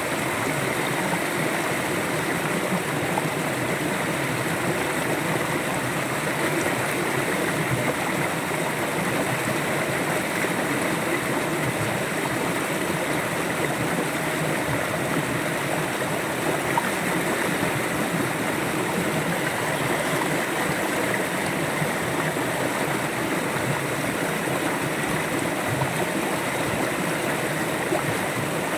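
River water flowing steadily over rocks: a continuous, even rush and gurgle.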